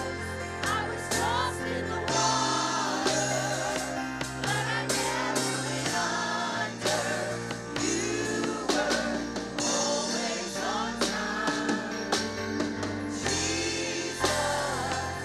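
Gospel worship music: a praise team singing over a band with held bass notes and a drum kit keeping a steady beat.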